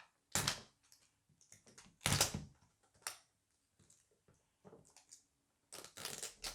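Toy packaging being handled and pulled open: scattered clicks and rustles, with louder rustles about half a second in, at about two seconds, and near the end.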